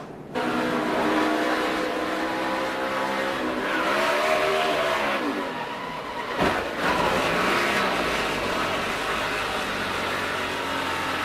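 NASCAR stock car V8 engine running at racing speed, a steady drone. Around four to five seconds in its pitch rises and falls back, and a single sharp knock sounds about six and a half seconds in.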